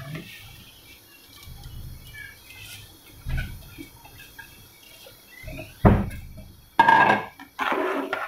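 Soaked rice poured into a metal pot of boiling water, with a thump about three seconds in and a heavier knock near six seconds. Near the end a metal ladle scrapes and clatters against the pot twice as the rice is stirred in.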